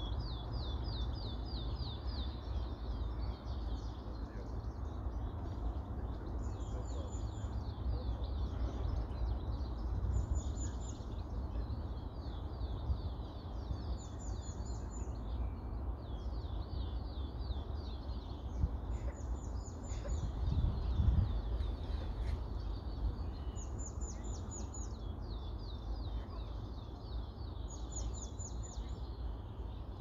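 A songbird singing the same short song over and over, a phrase about every three to four seconds, each a run of quick repeated notes with a higher flourish, over a steady low rumble.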